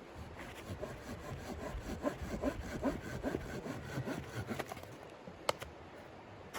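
Saw cutting wood in quick rhythmic rasping strokes, which stop near the end, followed by a single sharp click.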